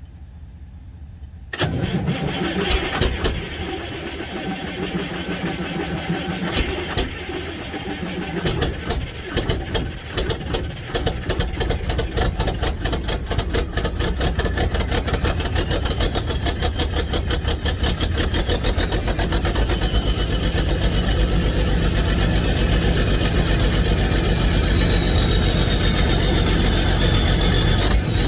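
Detroit Diesel 12.7-litre Series 60 diesel engine being cranked by its starter for about seven seconds, then catching with uneven firing that quickens into steady running: a hard start after sitting nearly three years. A high whine rises once the engine is running, then slowly falls.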